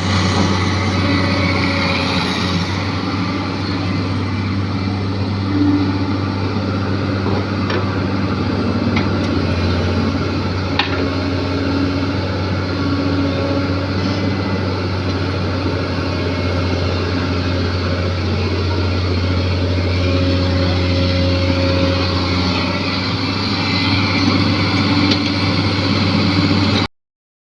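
Komatsu PC200 excavator's diesel engine running steadily, with a couple of faint clicks, then cutting off suddenly near the end.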